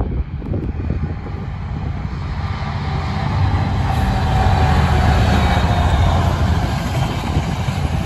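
A freight train passing close by: the locomotive's rumble builds to its loudest about halfway through, then carries on as the container wagons go past.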